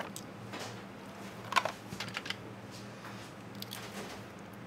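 A few light clicks and knocks, clustered about one and a half to two and a half seconds in with fainter ones later, over a steady low hum.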